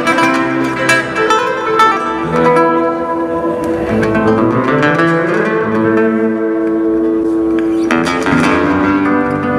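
Solo classical guitar played fingerstyle: a melody of plucked notes over bass notes, some notes ringing on for a couple of seconds, with a quick strummed chord about eight seconds in.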